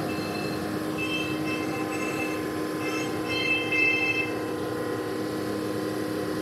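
Automatic car wash running, heard from inside the car: water spray hitting the windows over a steady mechanical hum, with a high-pitched whine coming and going.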